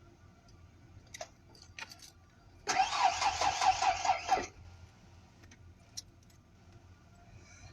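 A few key clicks, then the starter cranks the engine for under two seconds with a fast, even pulse and stops without the engine catching. This fits a vehicle that won't start on a battery run down by headlights left on.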